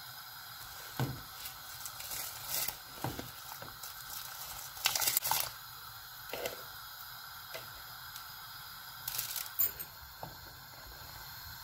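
Rice going into a non-stick pot of boiling water and being stirred with a plastic spatula: scattered short splashes and scrapes, loudest about five seconds in, over a steady low hiss.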